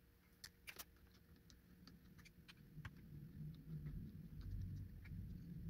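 Faint scattered clicks and light knocks of small parts being handled while a cordless chainsaw is taken apart, with low rubbing and shuffling noise building from about halfway through.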